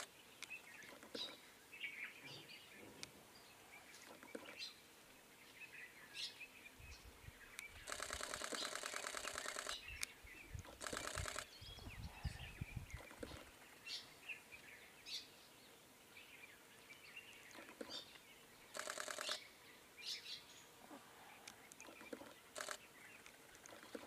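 Faint woodland bird ambience: many short chirps and calls throughout, with a few bursts of fast rattling chatter, the longest about two seconds. A low rumble runs under the middle of it.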